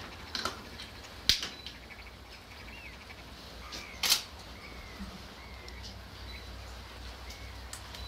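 Faint, short bird calls over a steady low rumble, broken by three sharp clicks: one just under half a second in, the loudest a little over a second in, and one about four seconds in.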